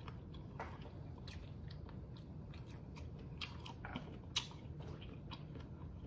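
Close-miked chewing and biting of seafood-boil food, with scattered short wet mouth clicks; the sharpest click comes about four and a half seconds in.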